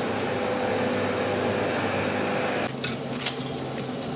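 Steady rasping metal-cutting noise with a low machine hum, as from a lathe turning a heavy steel shaft. It cuts off suddenly a little over halfway through, followed by a few sharp clicks.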